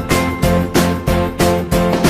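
Upbeat background music with plucked notes on a steady, quick beat.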